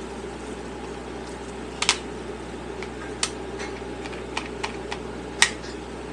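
Handling a DEWALT cordless oscillating multi-tool: about six sharp clicks and knocks, the loudest near the end, over a steady low background hum.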